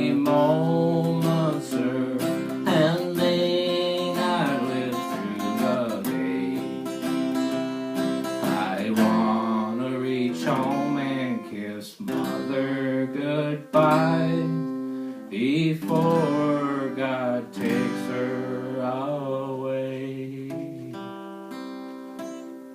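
Acoustic guitar strumming with a voice singing over it; near the end the singing stops and a final chord rings out and fades.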